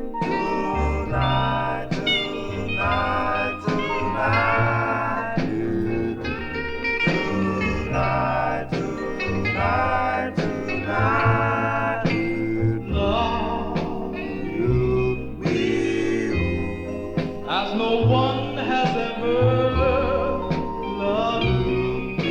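Vinyl 45 rpm record of an early-1960s vocal group playing its intro: group harmony singing over a band backing with a walking bass line.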